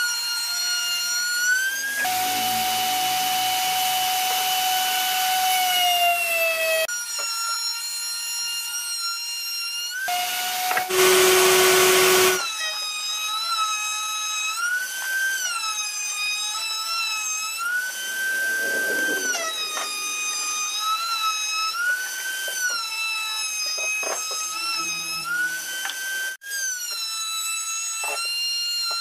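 A bench-mounted power cutting tool runs at high speed with a whine that dips in pitch and recovers again and again as pine boards are fed through it. A harsher cutting noise lasts several seconds a couple of seconds in. A short, much louder cut comes near the middle.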